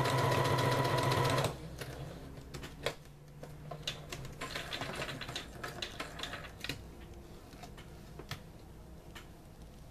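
Electric sewing machine running fast and steadily, sewing a row of long gathering stitches, then stopping abruptly about a second and a half in. Scattered small clicks and rustles follow as the fabric is handled at the machine.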